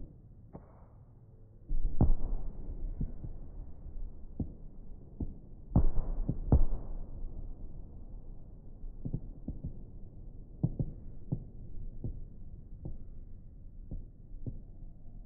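Aerial firework shells bursting in a series of deep booms, heaviest about two seconds and six seconds in, followed by a run of lighter bangs.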